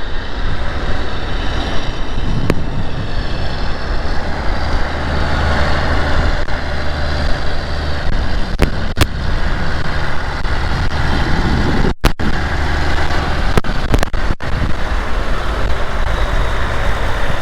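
Heavy diesel farm machinery running steadily under load, with a few sharp clicks and knocks.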